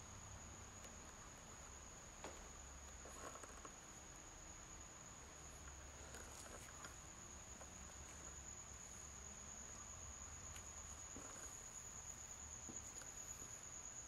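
Near silence: faint room tone with a steady high-pitched whine, and a few faint taps and scuffs of footsteps.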